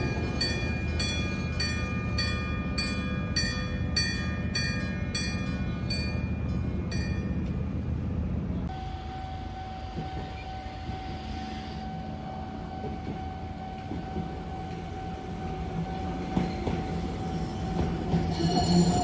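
Railway level-crossing warning bell, a real struck bell rather than an electronic tone, ringing with steady strokes about one and a half times a second. It stops about eight and a half seconds in, leaving the low rumble of rail traffic and a steady whine.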